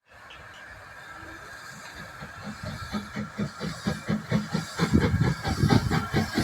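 Steam locomotive approaching, its exhaust beating in a regular rhythm of about four or five beats a second, with a steam hiss, growing steadily louder.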